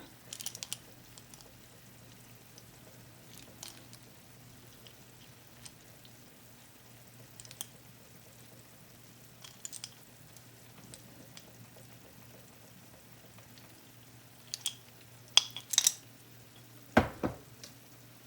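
Seafood paella cooking quietly in its pan: a faint steady frying hiss over a low hum, with a few light clinks. About fifteen seconds in there is a short run of louder knocks and clatter of cookware.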